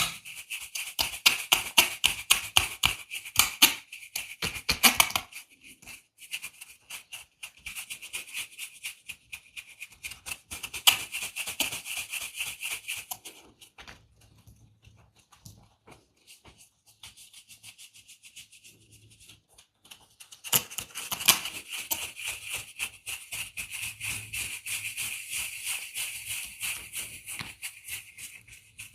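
Massage sounds: hands working quickly over skin and hair, a dense run of rapid rubbing and tapping strokes. The strokes pause briefly about five seconds in, go quieter for several seconds past the middle, then pick up again.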